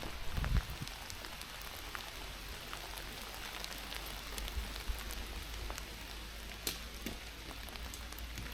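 Light rain falling, with many scattered sharp ticks of individual drops. There is a low thump about half a second in.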